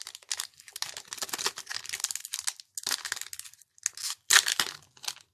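A Pokémon card booster pack's foil wrapper being torn open and crinkled by hand, in short irregular rustling crackles.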